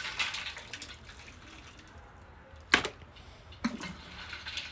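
Broth sloshing and dripping as a seafood boil of crab legs, crawfish and corn is scooped out of a large stockpot, with one sharp knock a little under three seconds in.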